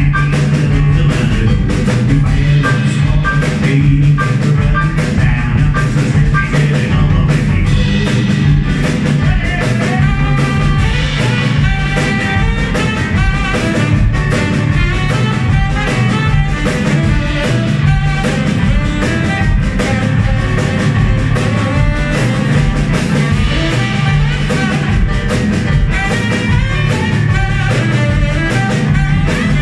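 Live band music: acoustic-style piano, drum kit and saxophone playing with a steady beat. The saxophone joins in partway through.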